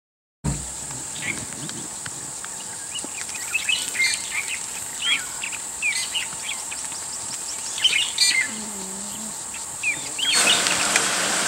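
Wild birds chirping with many short calls that rise and fall, over a steady high insect buzz. Near the end a louder, even rushing noise comes in.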